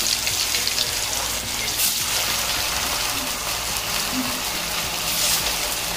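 Marinated fish piece frying in hot oil in a cast-iron kadai: a steady, dense sizzle with fine crackling.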